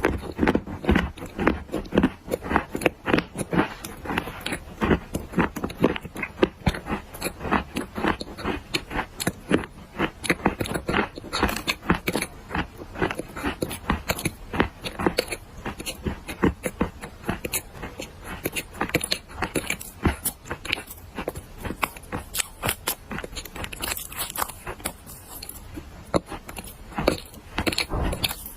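Dry black clay being bitten and chewed close to the microphone: dense, rapid, irregular crunching and crackling.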